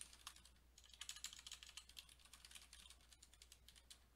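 Faint typing on a computer keyboard: quick, irregular keystroke clicks as a line of code is entered.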